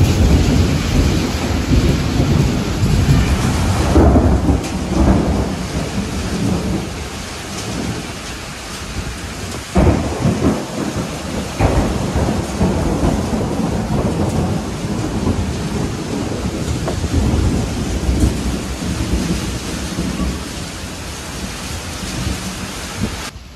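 Thunderstorm: heavy rain pouring steadily, with thunder rumbling loudest in the first few seconds and two sharper cracks about halfway through.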